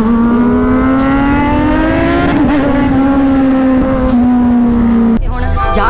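Kawasaki inline-four superbike engine at high revs under hard acceleration, its pitch rising for about two seconds and then holding and easing slightly. It stops abruptly about five seconds in.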